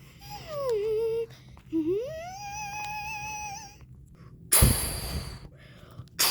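A voice humming or whining in a long wavering tone, first sliding down, then sliding up and holding. It is followed by two loud, short bursts of rushing noise about a second and a half apart near the end.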